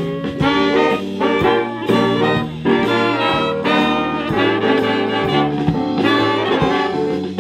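Big band playing swing jazz, with trombones, trumpets and saxophones over a steady beat.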